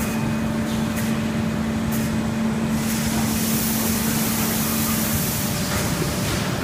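Core-making line machinery running in a factory hall: a steady mechanical noise with a constant low hum that stops about five seconds in. A hiss rises from about three seconds in and fades before the end, with a few faint clicks.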